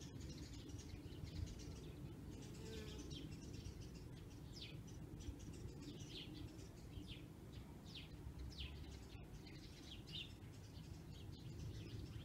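Faint bird chirps, short downward-sweeping calls about once a second, over a low steady background rumble.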